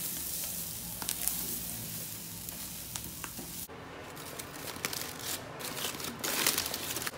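Pork sizzling on a charcoal grill, a steady hiss with a few faint clicks. A little over halfway through it changes abruptly to aluminium foil crinkling and rustling as a foil-wrapped piece of pork is unwrapped by hand, loudest near the end.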